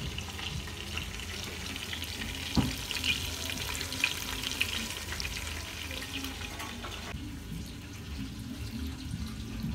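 Chicken pieces sizzling in hot oil in a pot, a steady crackle with one sharp knock about two and a half seconds in. About seven seconds in the sizzle stops and vinegar pours from a jug into a bowl.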